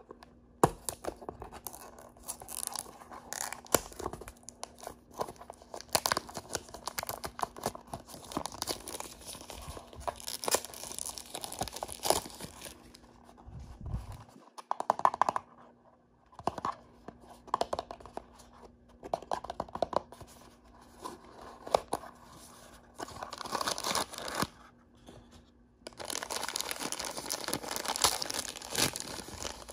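Toy packaging being torn open and crinkled by hand: irregular bursts of crackling wrapper noise with sharp clicks, turning into a longer run of steady crinkling near the end.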